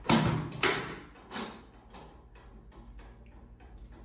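Three sharp clacks within the first second and a half, the third softer, as a chiropractic drop table's section snaps down under quick hand thrusts to the lower back, followed by faint ticks.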